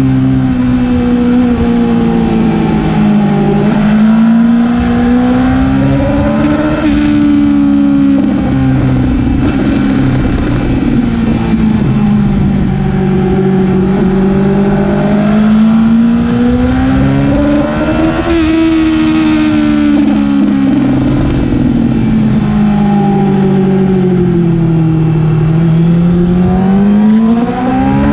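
Yamaha R6's inline-four engine heard from the rider's seat at track speed. Its revs drop and climb again several times as the bike is ridden through the corners.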